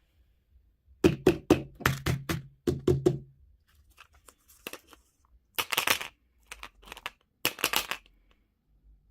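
Candy packaging being handled. First comes a quick run of about seven hollow plastic knocks, then two short bursts of wrapper crinkling.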